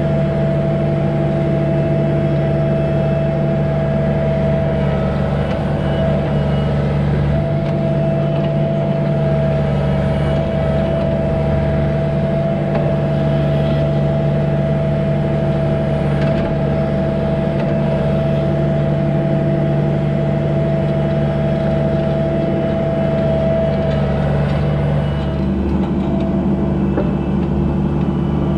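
An engine running at a steady speed, with a constant high whine over its low drone. The sound shifts slightly about 25 seconds in.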